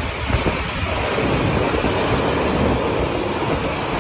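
Strong storm wind rushing and buffeting the microphone in a steady, heavy roar of noise.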